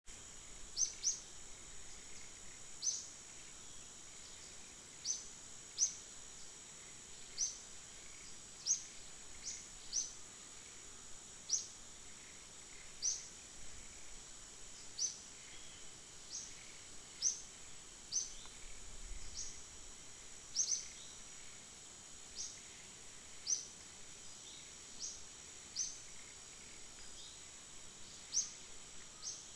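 Outdoor natural ambience: a steady high-pitched insect drone with short, sharp high chirps repeating about every second, often in pairs.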